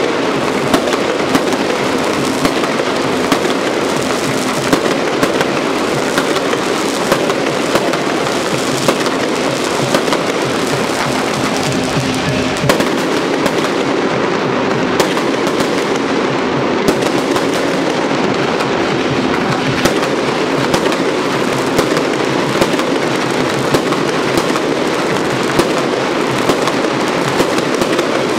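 Fireworks display: a continuous dense din of shell bursts and crackling, with sharper bangs about once or twice a second.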